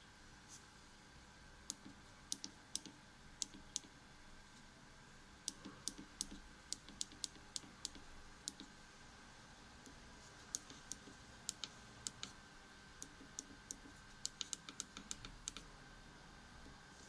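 Keys on a machine control panel being pressed: short sharp clicks at an irregular pace, in quick runs with pauses between, over a faint steady electrical whine.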